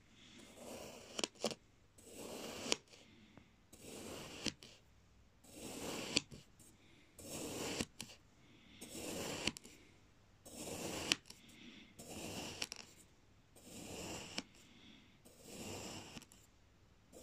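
Knife blade slicing through kinetic sand, a soft, crumbly scraping cut about every second and a half, with an occasional sharp tick.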